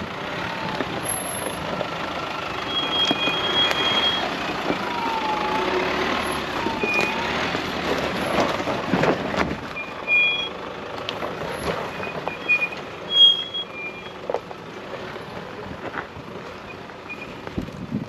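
Nissan Patrol four-wheel drive creeping down a steep dirt track: the vehicle and its tyres rumble over the rough ground. Short high electronic beeps come and go throughout, a squeak dips and rises in pitch, and a sharp knock sounds about two-thirds of the way in.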